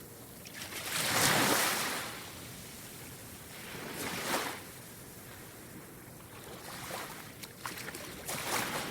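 Ocean waves breaking and washing in, in three surges: the biggest about a second in, a smaller one around four seconds, and a third near the end with short crackles of foam.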